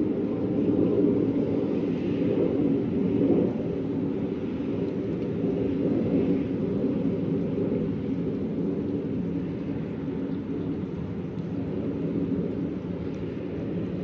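Steady low rumble of outdoor ambience, a little louder for the first few seconds and then easing slightly.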